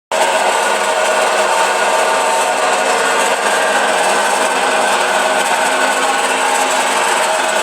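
Samsung washer-dryer in its spin cycle, running with a loud, steady mechanical noise of constant pitch: the abnormal noise during spinning that the machine is faulted for.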